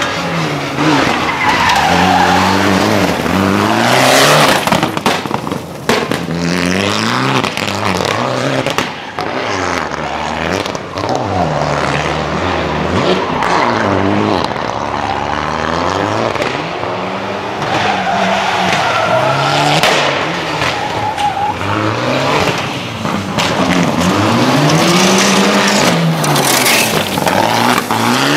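Rally car driven hard on a loose gravel stage, its engine revs climbing and falling again and again through gear changes and lifts, with tyres skidding on the gravel. It is loud near the end as the car slides past close by.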